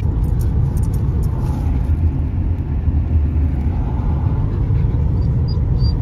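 Steady low rumble of a car's tyres and engine heard inside the cabin while cruising at highway speed.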